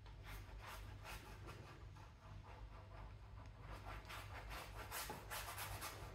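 Flat paintbrush stroking acrylic paint across a stretched canvas: a run of faint, scratchy brush strokes that come faster and closer together about five seconds in.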